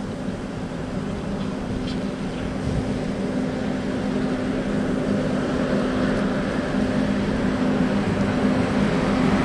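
Electric locomotives hauling a goods train approaching, a steady hum of two held tones over the noise of the train, growing louder as it nears.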